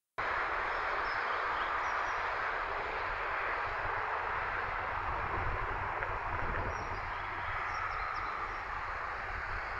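Steady outdoor rushing ambience under a storm sky, with an unsteady low rumble beneath it and a few faint high bird chirps, about two seconds in and again near the end.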